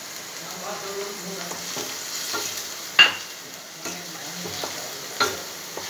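Onions and ground spices frying in oil in a steel pan, sizzling steadily, while a wooden spatula stirs and scrapes through them. A sharp knock about three seconds in is the loudest sound.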